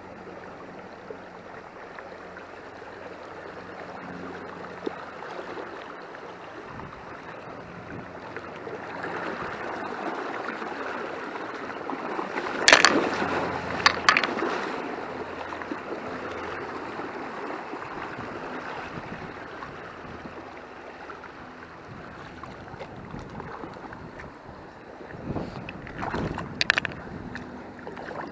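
Small river flowing steadily after heavy rain, with the water still up. A couple of sharp clacks come about halfway through, and a few more knocks near the end.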